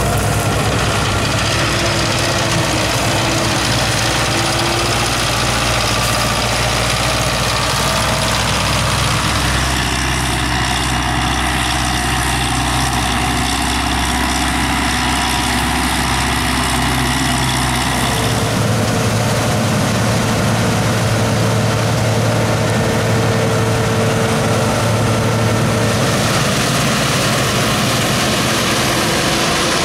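Diesel engine and threshing machinery of a Claas combine harvester running steadily during wheat harvest. The sound changes abruptly three times, at about ten, eighteen and twenty-six seconds in.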